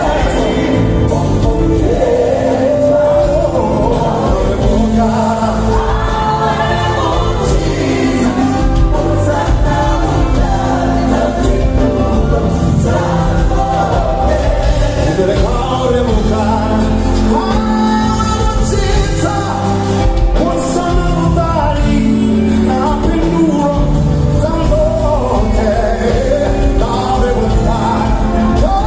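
Live gospel song: several singers in a choir-like group with a band of drums, electric guitar and keyboards.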